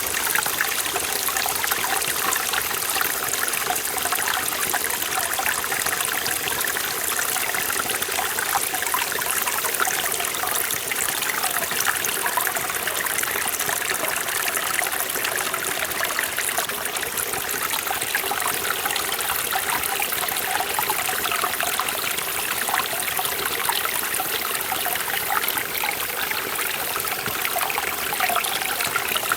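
Forest valley stream running over rocks, a steady rushing and trickling of water with fine splashes.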